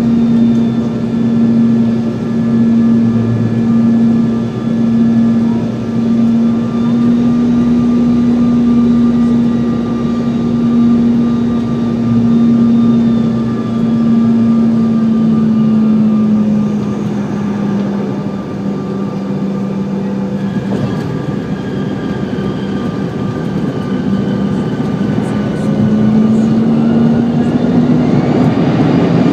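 Cabin sound of a Delta CRJ-900's GE CF34 jet engines during a windy approach and landing: a steady engine hum with a higher whine. The pitch drops slightly about halfway through as thrust eases, and the engines rise again with louder rushing noise near the end.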